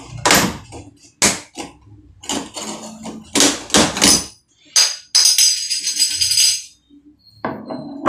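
Metal doorknob rattling and clanking in quick irregular knocks as it is worked off the lockset's spindle, with a bright metallic jingle lasting about a second and a half a little past the middle.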